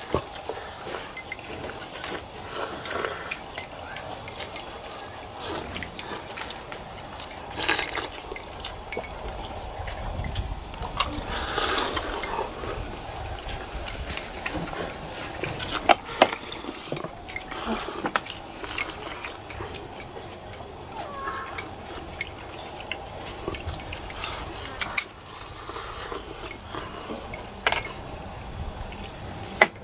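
People eating bowls of pho, slurping noodles and broth, with sharp clicks of chopsticks and bowls now and then.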